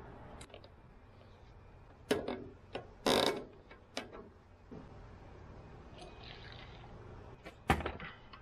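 Clicks and knocks of metal cans and a gel coat bucket being handled on a plastic work table. A short rasping burst comes about three seconds in, and a loud knock comes near the end.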